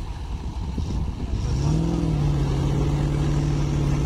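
Diesel engines working hard under load as a tractor tows a stuck, hay-laden truck on a cable. One engine revs up about a second and a half in and then holds a steady pitch over a continuous low rumble.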